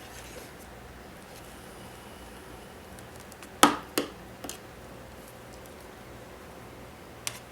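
Two sharp clicks about half a second apart, then a fainter third, as the key and starter are worked on the Kawasaki KFX 400 quad. No cranking follows: the starter does not turn the engine over, the no-crank fault.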